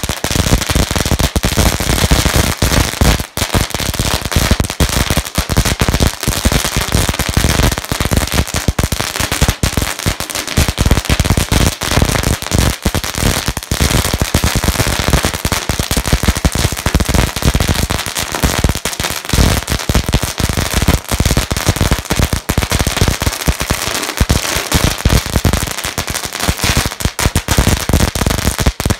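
Fireworks and firecrackers going off in a dense, continuous crackle of sharp pops, many each second without a break.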